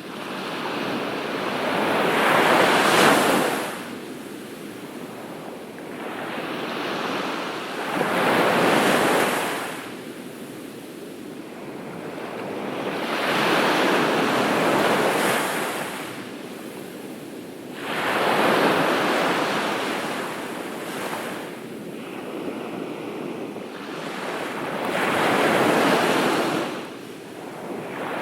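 Ocean surf breaking on a beach: five waves crash in turn, each swelling into a rush and falling away over a few seconds.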